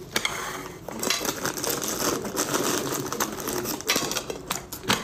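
Rapid clicking and clattering of objects being handled on a kitchen counter, busiest through the middle of the stretch.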